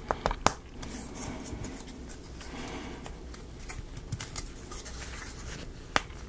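Small wooden model-kit parts being handled and worked by hand: a few sharp light clicks over soft scraping and rubbing.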